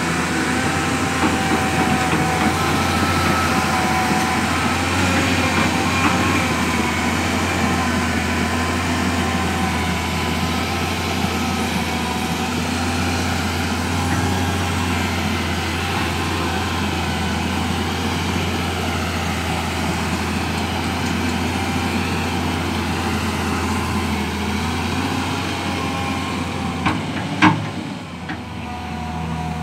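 Komatsu PC210LC hydraulic excavator's diesel engine running steadily, its pitch wavering a little as it works. A single sharp knock comes near the end.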